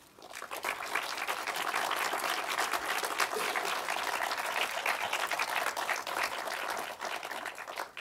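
Audience applauding, swelling over the first second, holding steady, then dying away near the end.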